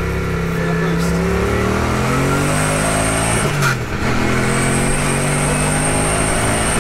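Turbocharged Lexus 1UZ-FE V8 accelerating hard through the gears, heard from inside the stripped cabin. The engine note climbs, drops at a gear change about three and a half seconds in, then climbs again, with a high turbo whistle rising during each pull.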